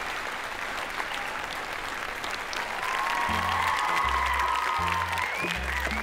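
A crowd applauding, with background music whose low bass notes come in about three seconds in.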